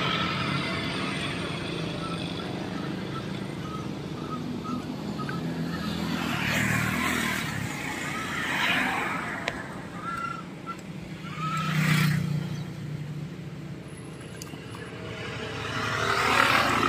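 Road traffic: a steady engine hum, with several vehicles passing in swells of noise. Brief high chirps come in between.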